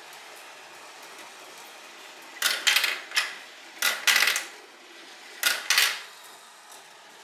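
Marbles running along a plastic rail marble run over a steady low background noise. Three bursts of sharp clattering, each doubled, come about two and a half, four and five and a half seconds in.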